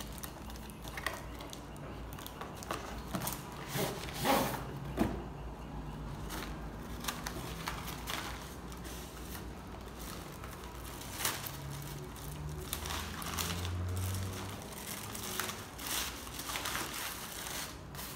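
Cardboard and plastic packaging rustling and crinkling, with scattered small knocks and clicks, as camera accessories are handled and lifted out of a cardboard box.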